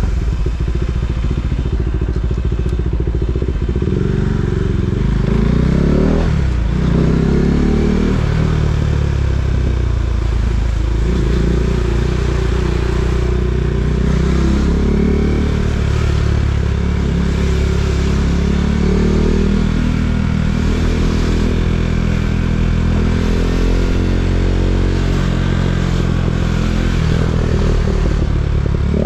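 KTM Duke 390's single-cylinder engine running under way, its pitch rising and falling several times as it accelerates, shifts and eases off.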